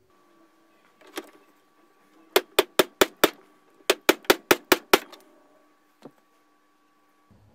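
Two quick runs of sharp clicks, five or six in each at about five a second, with a single click before and after.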